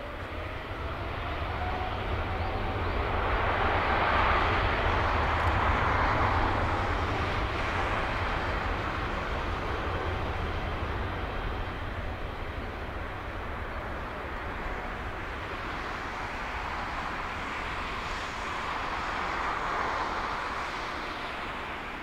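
Boeing 777-300ER's twin GE90 turbofans at takeoff power: a loud, steady jet rumble and hiss with a faint rising whine in the first seconds. It swells over the first few seconds, eases off, and swells again near the end as the airliner rolls away down the runway on its takeoff run.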